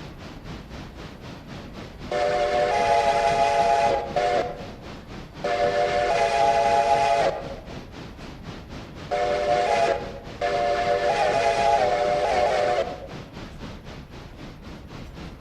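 Train whistle blowing the grade-crossing signal: two long blasts, one short, one long, each a chord of several steady notes.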